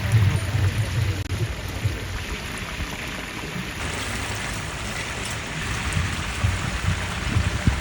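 Oil sizzling steadily as whole chickens deep-fry in a cauldron, an even crackling hiss.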